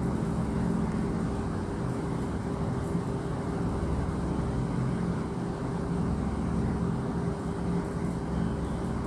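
Steady low background rumble with a constant hum through it.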